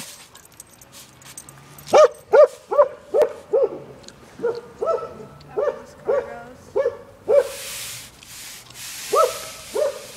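Norwegian Elkhound barking at a broom in quick, short barks, two or three a second. About a dozen come in a run starting about two seconds in, then two more near the end, with patches of scratchy brushing noise between them.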